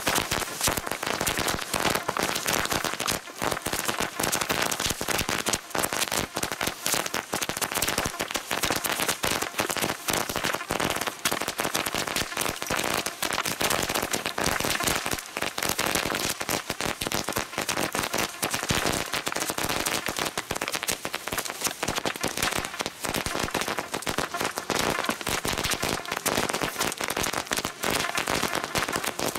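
A long red firecracker string (a firecracker belt) going off along its length in a rapid, unbroken chain of sharp bangs, dense and irregular like crackling, without a pause.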